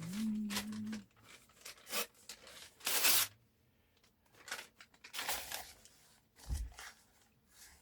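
Newspaper being torn into strips by hand, several quick rips, the loudest about three seconds in. A man hums a note for about the first second.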